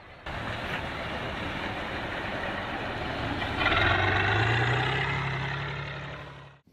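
Heavy tractor-bulldozer diesel engine working under load as it breaks up stream ice, over a steady rough noise. A little past halfway the engine note rises and grows louder, then the sound cuts off abruptly near the end.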